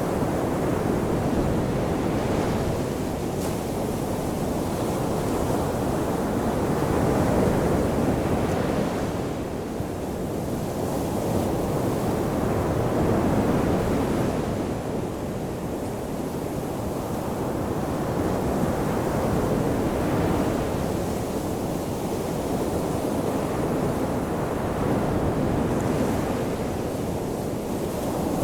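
Ocean waves washing onto a shoreline: a continuous rush of surf that swells and eases about every six seconds.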